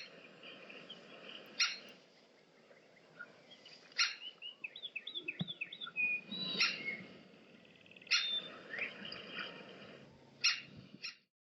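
Great spotted woodpecker giving its sharp, short 'kik' call, repeated about every two seconds, the adult calling to its juvenile to coax it out of the nest. Other songbirds twitter faintly in the background, and the sound cuts off just before the end.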